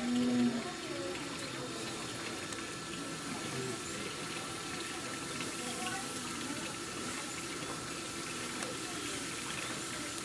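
Steady rush of running water in a penguin pool, with a faint thin whine held underneath.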